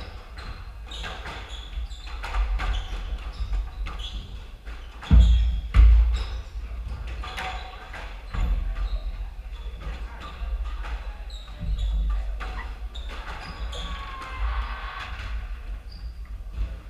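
Squash rally: sharp smacks of the ball off racket strings and court walls, with short squeaks of sneakers on the wooden floor. Two heavy low thumps about five and six seconds in are the loudest sounds.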